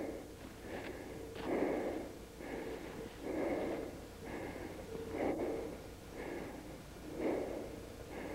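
Heavy, laboured breathing close to the microphone: a louder breath about every two seconds, with weaker breaths between.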